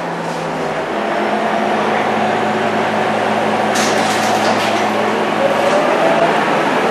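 Scania K230UB bus's diesel engine and ZF 6HP502C automatic gearbox pulling under load, heard from inside the passenger cabin, with a steady low drone and a gearbox whine that rises in pitch near the end. A brief hiss comes about four seconds in.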